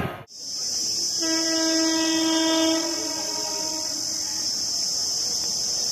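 An Indian Railways train horn sounds once, one steady held tone for about a second and a half, then fades. Insects keep up a steady high buzz throughout.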